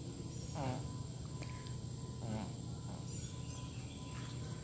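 Outdoor ambience: a steady high-pitched insect drone over low rumble, with two brief calls about half a second and two and a half seconds in.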